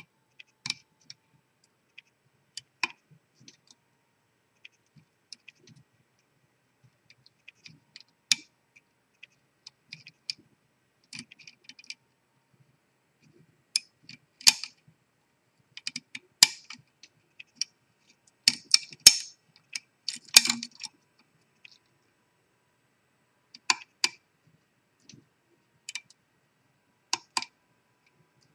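Scattered small metallic clicks and taps of wire lock picks and a tensioner working the levers inside a Ross 100 series six-lever safe lock, with a denser run of clicks a little past the middle.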